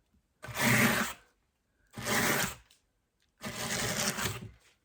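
Fibre being brushed into the carding cloth of a blending board: three brushing strokes, each just under a second, with short pauses between.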